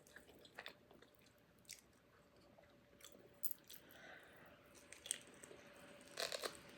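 Faint close-miked chewing and mouth sounds of a person eating, a scatter of small clicks with a short louder cluster near the end.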